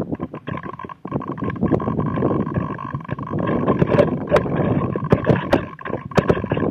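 Rushing air buffeting the microphone of a 360fly camera flying as a rocket payload, with irregular sharp clicks and rattles that come thicker in the second half, over a faint steady tone.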